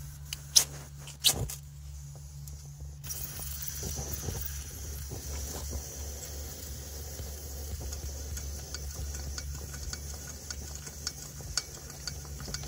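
Pressurised petrol camping stove being lit: a few sharp clicks, then about three seconds in the burner catches and runs with a steady hiss over a low hum.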